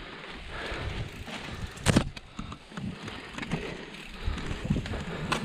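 Mountain bike rolling over rocky dirt singletrack: steady tyre and trail noise with rattling and clicking from the bike as it bumps over rocks, and a sharp knock about two seconds in and another near the end.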